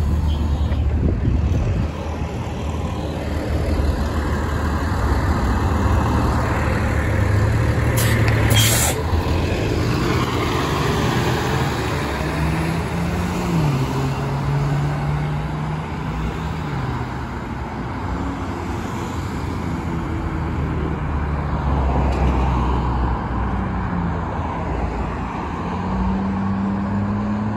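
New Flyer XD40 diesel city bus heard from inside the cabin while under way: the engine's note rises and falls as the bus pulls away and shifts gears, over steady road noise. A short air hiss comes about eight seconds in.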